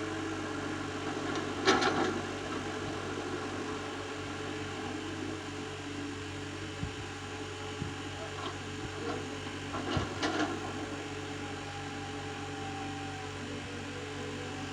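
Excavator's diesel engine running steadily, with two louder bursts of clatter about two seconds in and about ten seconds in. A thin whine sets in near the end.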